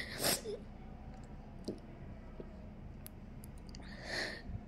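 Two short breaths from a tearful woman, one just after the start and one about four seconds in, with a few faint mouth clicks between them.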